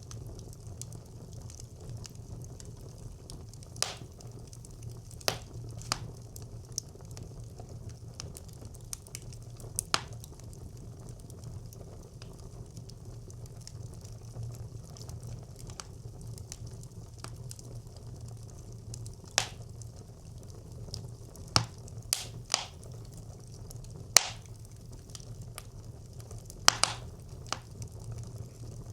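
Fire burning in a traditional brick clay stove: a steady low rumble of flames, broken by sharp crackles and pops at irregular intervals, about a dozen in all.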